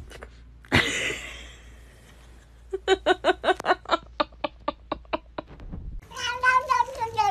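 A grey cat makes a quick run of short, pitched calls, about five a second, after a brief noisy burst. About six seconds in, a tabby cat being stroked starts one long, drawn-out meow that slowly falls in pitch.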